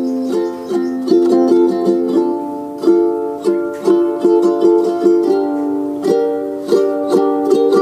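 Background music: a light plucked-string tune with a steady rhythm of sharply struck notes.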